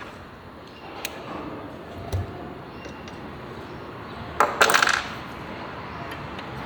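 Metal engine parts and tools handled on a workbench: scattered light clicks, a dull knock, then a loud metallic clatter lasting about half a second, about four and a half seconds in.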